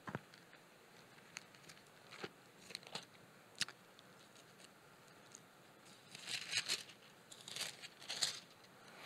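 Faint paper rustling as book pages are leafed through close to a handheld microphone. A few scattered soft clicks come first, then a run of rustles in the last third.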